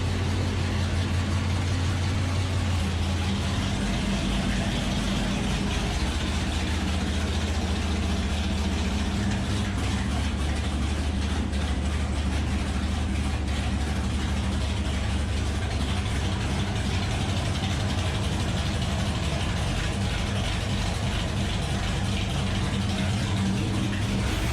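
A 1970 Dodge Charger's V8 engine idling steadily, its low pitch shifting slightly a few times.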